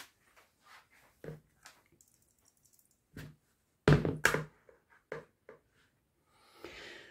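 A metal mesh sieve being handled and knocked against a plastic mixing bowl while sifting flour: scattered light taps, with a louder cluster of knocks about four seconds in as the sieve is gripped and shaken.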